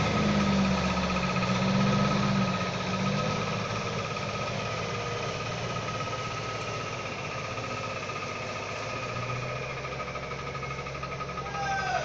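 Diesel engine of a loaded log truck running as it drives slowly along a dirt road, loudest for the first two or three seconds and then settling to a lower, steady drone, with a thin steady whine over it. A short falling squeak comes near the end.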